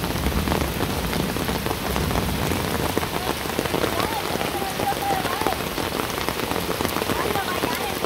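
Rain of a thunderstorm falling steadily, a dense patter of many individual drops hitting surfaces.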